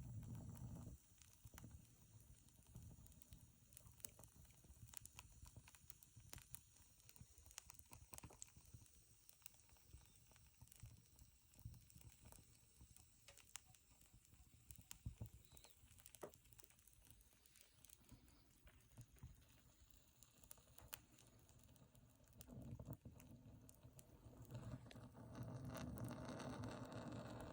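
Faint crackling of firewood burning in an old stove, with sparse sharp pops scattered throughout. A low rumble comes in over the last few seconds.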